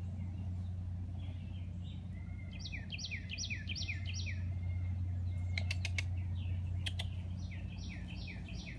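A songbird singing a quick run of about five down-slurred chirps, about two and a half seconds in and again near the end. A few sharp clicks come in between, over a steady low hum.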